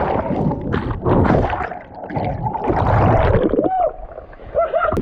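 Water splashing and churning, loud and uneven. A few short rising-and-falling calls come near the end.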